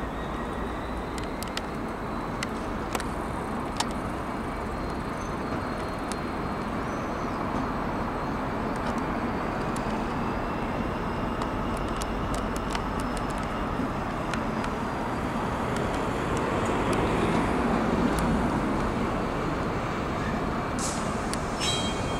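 GBRF Class 66 diesel locomotive 66799, its two-stroke V12 engine running with a steady rumble as it hauls a train of coaches slowly around a curve, growing a little louder as it draws closer.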